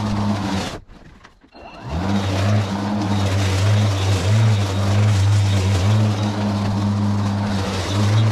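Battery-powered lawn mower running as it cuts thick, overgrown grass, a steady electric motor and blade hum. The sound drops away about a second in, then the motor spins back up with a rising pitch. After that the hum dips in pitch now and then as the blade meets dense grass.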